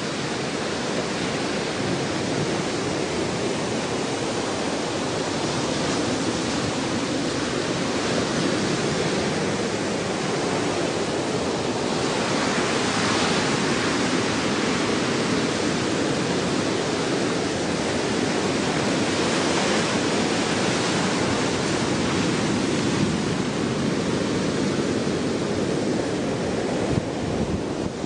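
Steady rushing noise of wind and surf, with wind buffeting the microphone; it swells and eases slightly but never breaks.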